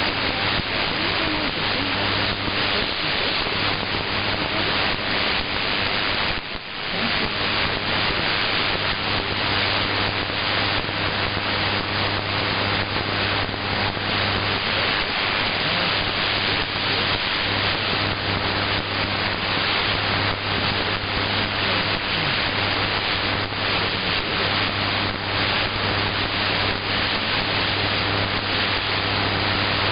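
Shortwave AM radio reception: steady static hiss with a low hum, the broadcast signal weak and faded down into the noise. The noise drops out briefly about six and a half seconds in.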